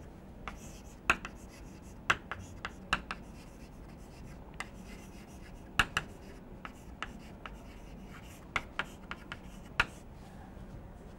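Chalk writing on a chalkboard: a string of irregular, sharp taps and short scratches as the chalk strokes form letters and numbers.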